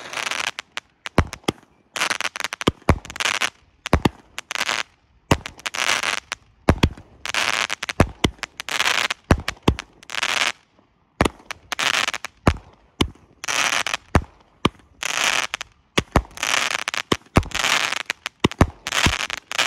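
World Class Fireworks One Eyed Willy 25-shot firework cake firing shot after shot, about one a second. Each shot is a sharp report followed by up to a second of crackle.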